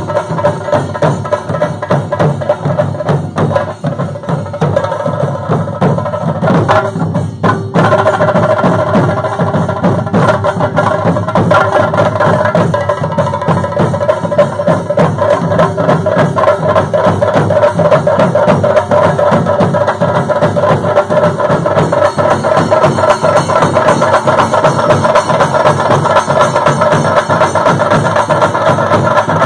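An ensemble of Kerala chenda drums beaten in fast, dense strokes, the rhythm for a kolam thullal ritual dance, with a steady ringing tone over the drumming. It grows louder about eight seconds in.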